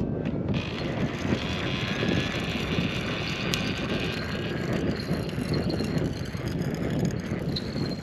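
Wind buffeting the microphone: a steady, rough rumble.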